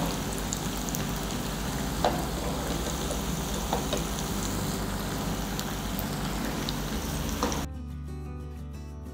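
Batter-coated suzhiyam balls deep-frying in hot oil: a steady sizzle with scattered crackles and pops. The sizzle cuts off suddenly near the end, leaving only background music.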